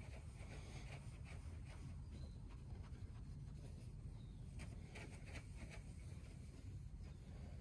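Wax applicator pad rubbing liquid boat wax onto the trailer's side in quick back-and-forth strokes, faint, over a steady low rumble.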